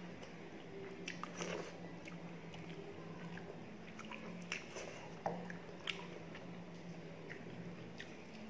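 Close-up mouth sounds of eating rice with the fingers: chewing and lip smacking, with scattered short, sharp wet clicks.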